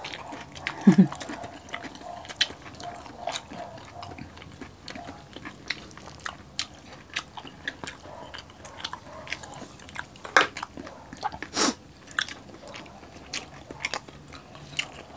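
Close-miked eating sounds: chewing and crunching of crispy fried pork belly and rice eaten by hand, a steady scatter of small crunches and mouth clicks, with two louder sharp sounds about ten and eleven and a half seconds in.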